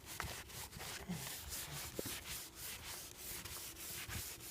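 Folded paper towel wet with citrus degreaser scrubbed back and forth over a MacBook's case, a rubbing swish of about three strokes a second.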